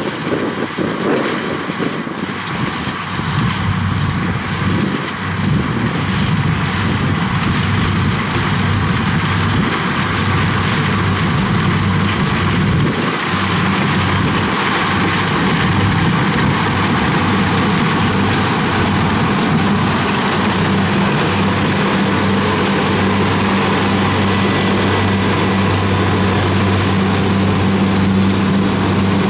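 Kubota DC-70 rice combine harvester running at working speed while it cuts rice: a steady diesel engine drone under the rushing, hissing noise of the cutter and threshing drum. It gets a little louder and steadier over the first half as the machine comes close.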